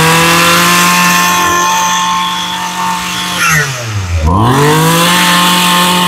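Echo GT260 brush cutter's 26 cc two-stroke engine held at high revs, dropping to idle about four seconds in and revving straight back up. It runs evenly, which the seller calls very good.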